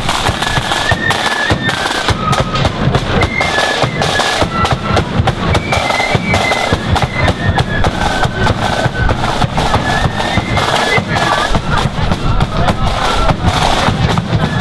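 Marching flute band playing a tune: flutes carry a high melody over rapid snare drumming and bass drum beats.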